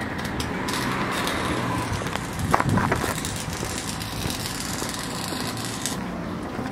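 Steady outdoor traffic noise, with a few short knocks about two and a half seconds in.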